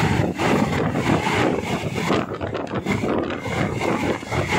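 Wind buffeting the microphone out of the open window of a moving passenger train, in gusty, uneven rushes over the train's running noise.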